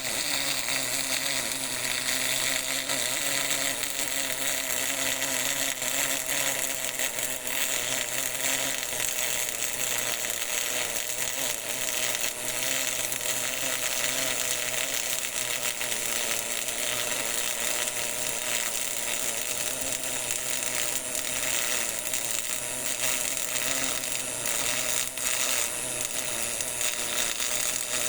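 GMAW (MIG) welding arc burning continuously, a steady sizzling crackle with a low hum underneath.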